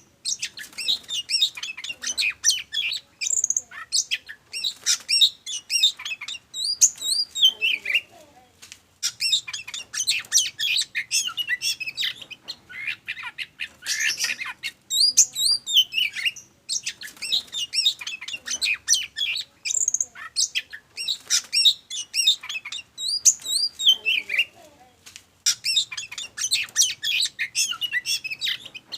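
Oriental magpie-robin singing a loud, fast song of varied whistles, chirps and harsh notes. It sings in phrases of a few seconds with short pauses between them: the agitated, full-voiced song of a bird in top form.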